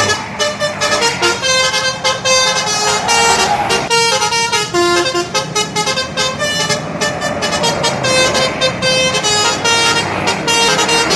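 Bus telolet horn, a multi-tone air horn, playing a quick melody of changing notes, one after another, over a running vehicle.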